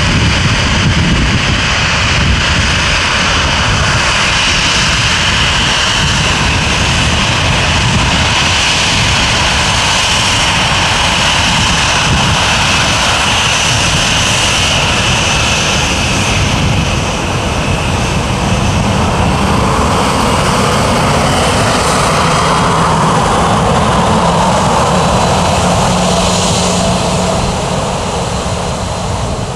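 Boeing 737-800's jet engines running at taxi power as the airliner rolls past close by: a steady, loud jet engine noise with a high fan whine over it for the first half, then a lower tone coming up in the second half as the aircraft turns away.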